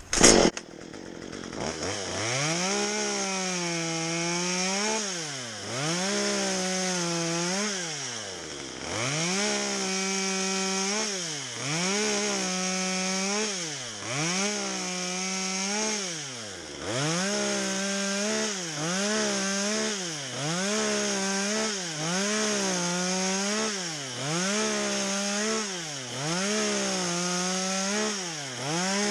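Stihl MS 193 T top-handle two-stroke chainsaw making a series of short cuts into a pine limb. The throttle is squeezed about a dozen times: each time the engine revs up, holds high for one to three seconds while cutting, then drops back toward idle.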